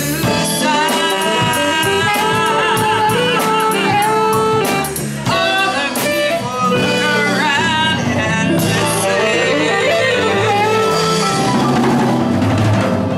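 A blues band playing the closing bars of a song: a full, steady band sound with a held lead melody wavering in vibrato.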